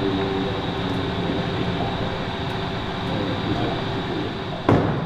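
Steady workshop background noise with faint voices under it, and one sharp knock near the end.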